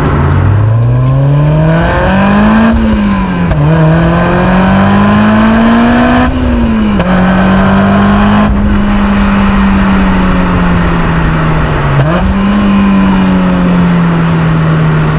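Sports car's engine and exhaust under hard acceleration: the revs climb and drop sharply at two upshifts, then hold at a steady high pitch, with a brief lift-off and pickup near the end.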